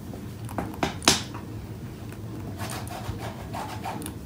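Metal palette knife working acrylic paint: a few sharp clicks and taps about a second in, then a series of short scraping, rubbing strokes through the paint near the end.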